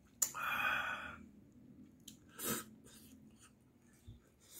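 A man lets out a loud, breathy exhale, the reaction to a shot of soju, then a shorter throaty burst about two seconds later, followed by faint chewing near the end.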